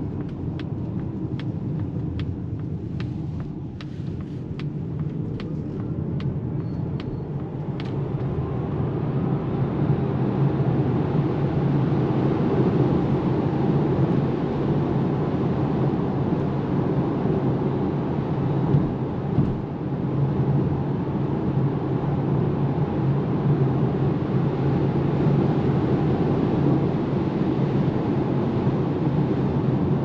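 Inside the cabin of a Polestar 2 Long Range Dual Motor electric car gathering speed: steady road and wind rumble that grows louder about eight to ten seconds in, then holds at motorway speed. A regular ticking runs through the first eight seconds or so.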